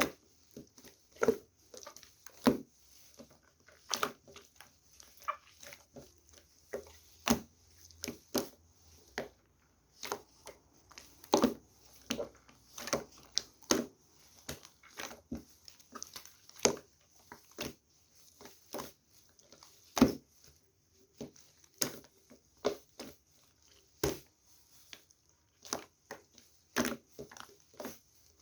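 Irregular sharp crunches and clicks, one to a few a second with short pauses between them.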